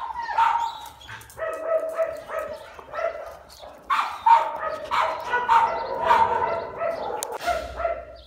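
Brown-and-white dog whining and yipping, a quick run of short pitched cries one after another.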